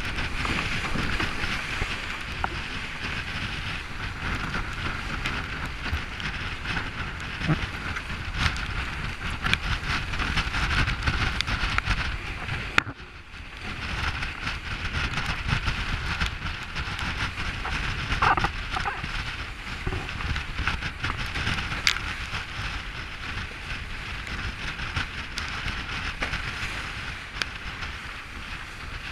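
Wind buffeting the microphone and water rushing and spraying along the hull of a trimaran sailing fast: a continuous rushing hiss over a heavy low rumble, with a few sharp ticks of spray hitting. It briefly drops away about 13 seconds in.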